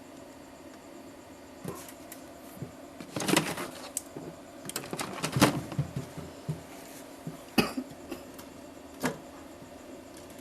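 Irregular clicks and knocks of small objects being handled, over a faint steady hum. There is a cluster of them a few seconds in and single sharp ones later.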